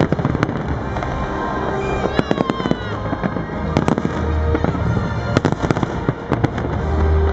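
Aerial fireworks shells bursting: an irregular, rapid series of sharp bangs, over music with a deep bass.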